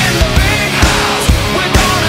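Rock music with a steady, heavy drum beat, about two beats a second.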